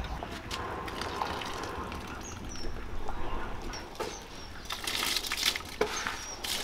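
Wet handling noises of food in a pot: fish shifting and slapping in a large pot, then cooked rice tipped from a plastic bowl into a pot of broth, with a rustling, splashing stretch about five seconds in. A few short, high chirps are heard over it.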